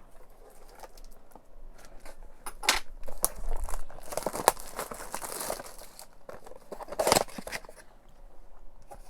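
Packaging of a baseball-card box being torn open by hand: crinkling and tearing in irregular bursts, with a longer stretch of crinkling about four to five seconds in.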